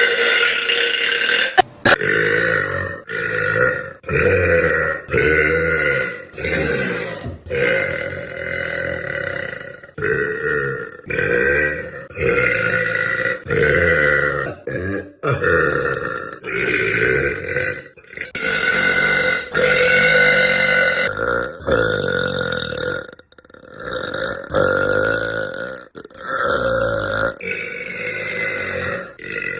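A girl burping loudly, over and over: a long series of separate burps about one a second, starting about two seconds in, some of them drawn out.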